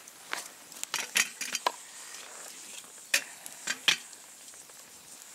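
Metal clinking of a spoon stirred and tapped in a tin mug: a few sharp clinks in the first two seconds, then three more between three and four seconds in.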